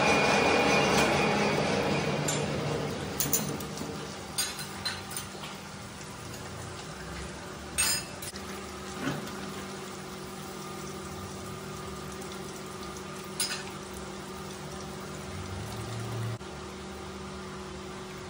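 Manual lathe turning a steel ring: the tool's cut rasps loudly for the first couple of seconds and fades out, leaving the lathe running with a steady hum. Several sharp metal clinks follow as a ring spanner is worked on the tool post.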